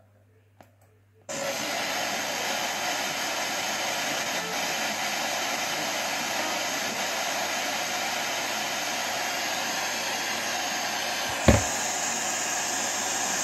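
Sanyo U4S25 boombox's radio tuner giving loud steady static hiss from its speaker, which cuts in suddenly about a second in, with no station tuned in. A single thump comes near the end, after which the hiss sounds brighter.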